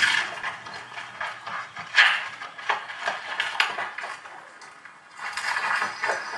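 Film soundtrack playing through cinema speakers: a run of irregular sharp knocks and rustling crashes, loudest about two seconds in and again near the end.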